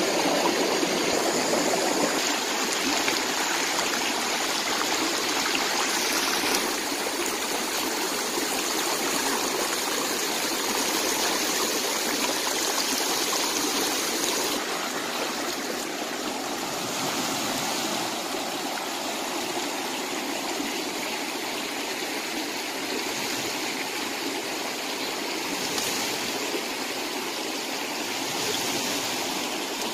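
Shallow rocky stream running over stones: a steady, even sound of flowing water.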